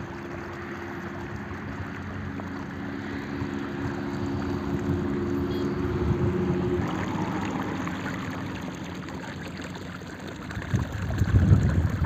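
Irrigation water gushing from the end of a pipe and splashing into a ditch, a steady rush with a low hum under it for the first half or so. Wind buffets the microphone near the end.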